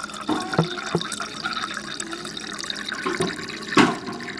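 Eating sounds close to the microphone: wet chewing and mouth noises, with a few sharp knocks, the loudest one near the end.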